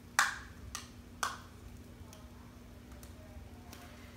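Bubble wrap around a computer being handled: a few sharp crackles, the loudest just after the start and two more within the first second and a half, then only faint ticks.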